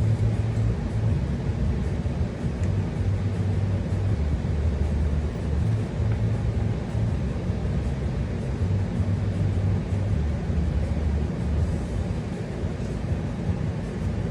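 Steady low background rumble with a droning hum whose pitch shifts slightly every second or so; no distinct handling sounds.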